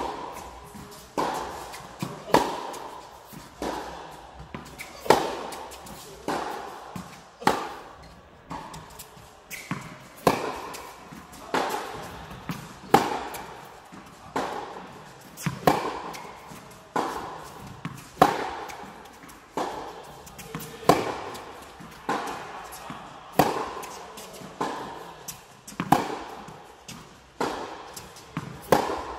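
Tennis rally: a ball struck hard by rackets about every one and a third seconds, with quieter ball bounces between the strikes, each hit echoing in a large indoor tennis hall.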